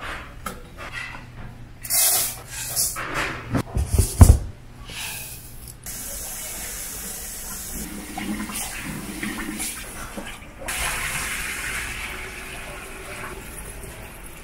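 Knocks and clatter of cookware for the first few seconds, the loudest a heavy thump about four seconds in. Then tap water runs steadily into a stainless steel bowl as grain is washed in it by hand.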